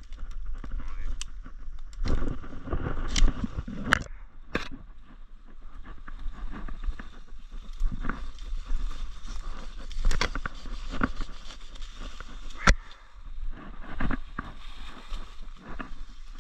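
Leaves and brush rustling, broken by irregular sharp snaps and clicks as saplings and branches are cut with hand loppers and pushed aside.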